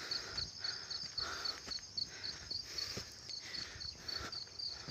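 An insect chirping in a steady, high-pitched pulse, about five chirps a second, with faint scattered taps and rustles.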